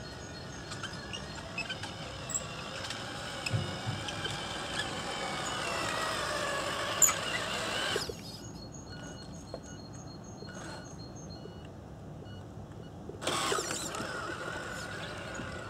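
Tamiya Scania R560 radio-controlled truck driving: its motor whine climbs steadily in pitch, then cuts off suddenly about eight seconds in as the truck stops. Near the end it starts again with a sudden burst, and the whine falls in pitch as it pulls away.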